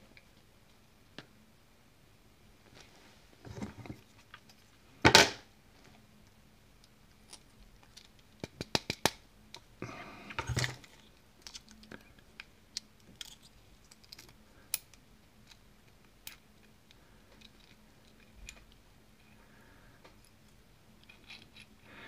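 Scattered small metal clicks and taps as a picked euro cylinder lock is taken apart by hand, its plug worked out of the housing with a tool; the sharpest click comes about five seconds in, with a quick run of ticks a few seconds later.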